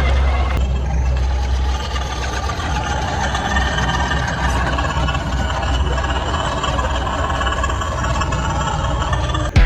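RC crawler truck driving on a trail, with a steady engine-like drone that holds without big changes.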